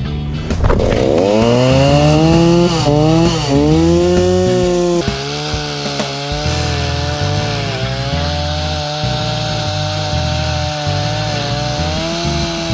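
Chainsaw revving up about a second in, its pitch dipping twice, then running at high, steady revs from about five seconds in while cutting firewood.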